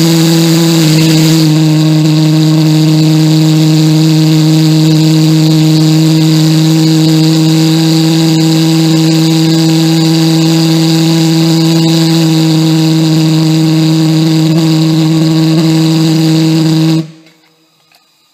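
Homemade gasoline-fuelled valveless pulsejet (thermojet) running: a loud, steady drone at one constant pitch with overtones and a hiss over it, cutting off abruptly about seventeen seconds in.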